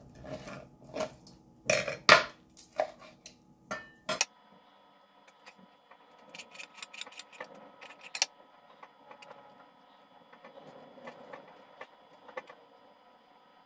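Fork and knife scraping and clicking against a plastic cutting board while pulling apart cooked chicken, the sharpest strokes about two seconds in. After a sudden change about four seconds in, only soft taps and rustling of fingers tearing the meat off the bones.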